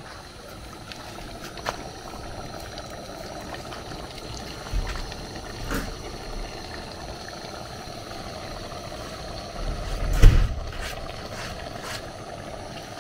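Steady rushing hiss of a pot of egusi soup cooking on a burner, with a few clicks and scrapes as chopped bitter leaf is pushed off a wooden cutting board into the pot, and a louder thump about ten seconds in.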